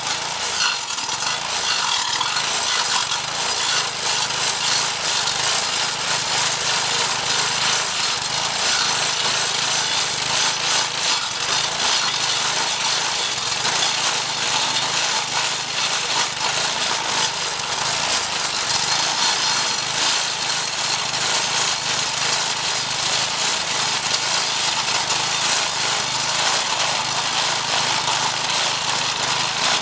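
Edger-turned-stump-grinder, a Briggs & Stratton 4.5 hp vertical-shaft engine driving a 10-inch carbide-tipped saw blade, running under load as the blade grinds into a hard mulberry stump: a steady, continuous grinding rasp over the engine's hum.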